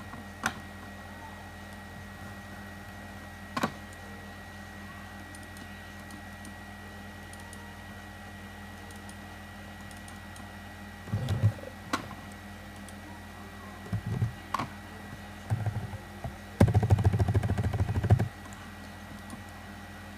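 Computer keyboard typing and single mouse clicks: a few lone clicks early, then short bursts of keystrokes in the second half, ending in a rapid run of typing that is the loudest part, over a faint steady electrical hum.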